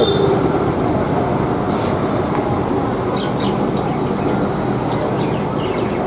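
Steady background hum and hiss, with faint high chirps about two and three seconds in.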